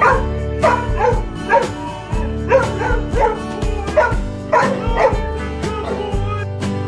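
A dog whining and yipping in repeated short, high cries that stop near the end, over background music with a steady beat.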